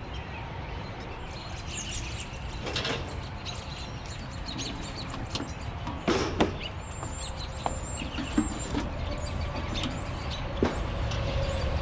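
A few sharp knocks and clatters as curbside junk is handled, the loudest about six seconds in, over a steady low outdoor rumble. Short high bird chirps repeat through the second half.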